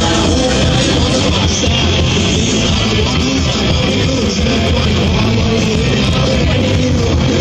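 Punk-rock band playing live and loud: amplified electric guitars, bass and drums in a steady, unbroken stretch of a song.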